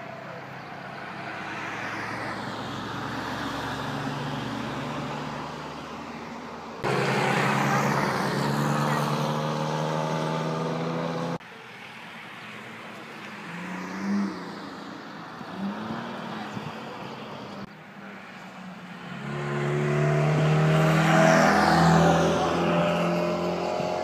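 Cars driving past one after another, their engine notes gliding in pitch as each goes by. The sound changes abruptly about 7, 11 and 18 seconds in, and the loudest pass comes near the end.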